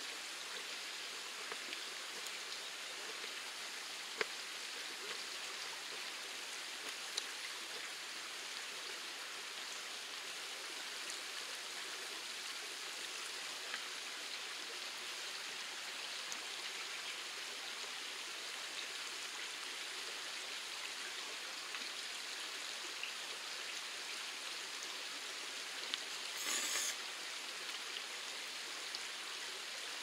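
Mountain stream running steadily. A few sharp knife taps on a cutting board come in the first several seconds, and a short burst of noise comes near the end.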